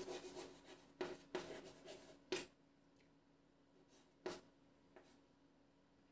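Handwriting strokes: short scratchy strokes of a pen or marker, several close together in the first couple of seconds, then a few single strokes further apart.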